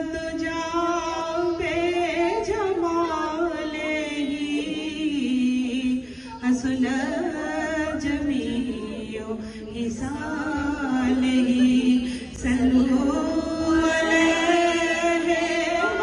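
Women's voices singing a naat, a devotional praise poem, unaccompanied over microphones, in long drawn-out notes with two brief pauses between lines.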